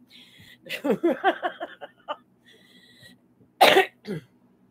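A woman laughing in a quick run of pulses, then coughing hard into her fist near the end, with a smaller second cough just after.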